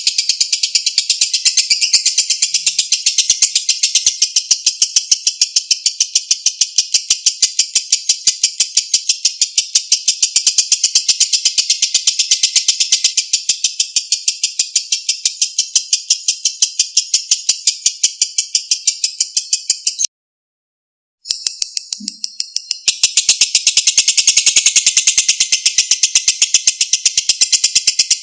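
Lovebird giving a long 'ngekek' chatter: a rapid, unbroken run of high, evenly spaced chirps. It stops dead for about a second near the two-thirds mark, then resumes, quiet at first and soon back to full strength.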